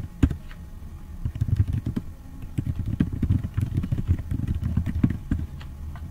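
Typing on a computer keyboard: a quick, uneven run of key clicks with dull thumps through the desk, over a steady low hum.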